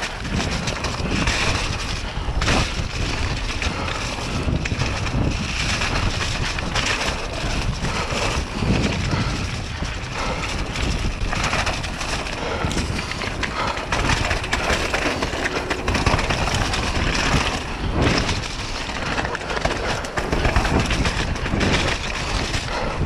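Mountain bike descending a rough, muddy trail at speed: tyres rolling over dirt and roots, the bike knocking and rattling over frequent bumps, and steady wind buffeting on the action camera's microphone.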